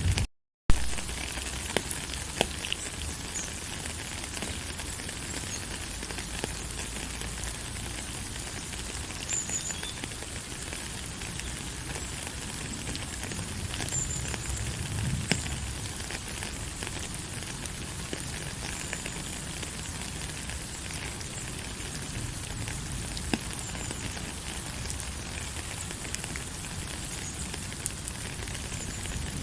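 Steady rain falling, an even hiss with scattered crackly drop ticks. The sound drops out completely for a moment about half a second in and comes back with a sharp click.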